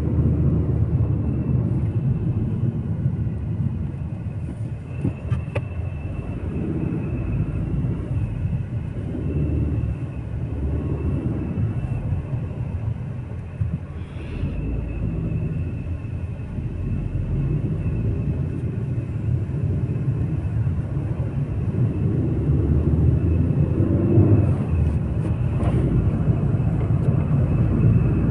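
Steady low rumble of a moving car, heard from inside the cabin, with road and engine noise and a few faint knocks.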